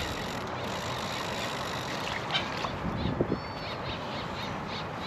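Steady outdoor background noise, with faint ticks and a brief bird-like chirp in the second half.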